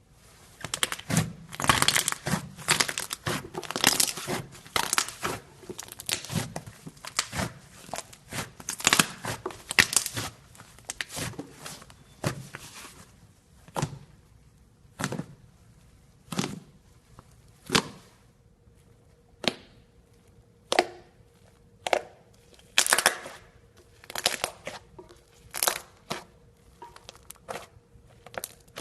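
Fluffy slime squeezed, stretched and poked by hand: a dense run of sticky crackling and tearing sounds for the first dozen seconds or so, then single pokes about once every one to two seconds.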